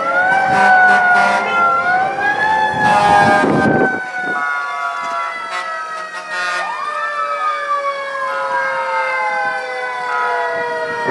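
Several fire truck sirens sounding together and overlapping, each climbing quickly in pitch and then winding slowly down over several seconds, with fresh climbs about two and six seconds in. A short burst of noise cuts through about three seconds in.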